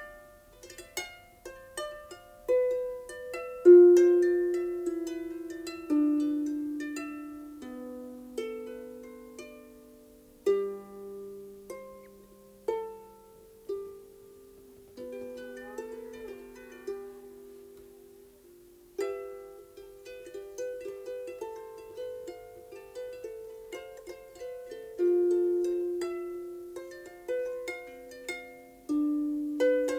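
Harp playing a slow melody of plucked notes that ring and die away, with a short pause a little past the middle.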